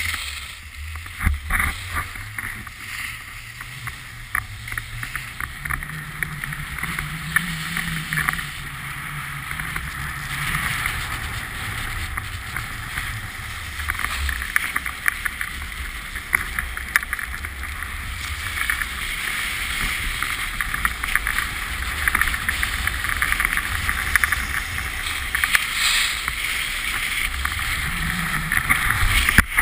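Skis scraping and carving on groomed, hard-packed snow during a downhill run, with wind rumbling on the camera's microphone. The scraping grows louder in the second half.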